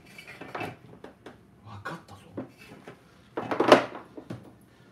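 Hands handling and fitting welder parts: a run of small clicks and knocks, then a louder clatter lasting about half a second late on.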